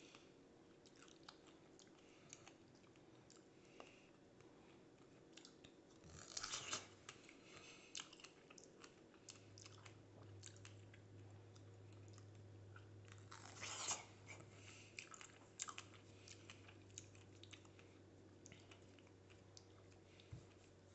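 A person chewing strawberries close to the microphone, soft and wet with small mouth clicks, and two brief louder noises about six and fourteen seconds in. A low steady hum comes in about halfway through.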